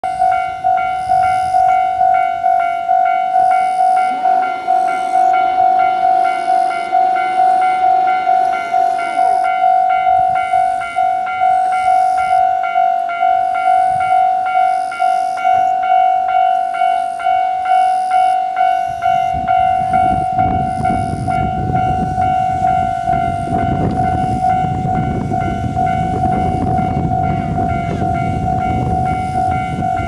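Level crossing warning bell ringing in quick, even strokes. From about two-thirds of the way in, a KiHa 40 diesel railcar's engine comes in underneath and grows louder as it pulls away from the station.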